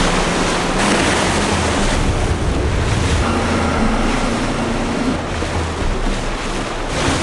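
Boat running at speed over open sea: wind buffeting the microphone and water rushing along the hull, with a low steady engine drone underneath.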